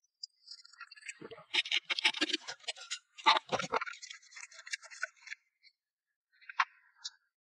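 A chiselled wooden workpiece being handled and worked loose from a steel bench vise: a few seconds of scraping, rattling and knocking of wood against metal, including a deep thud, then a single sharp click near the end.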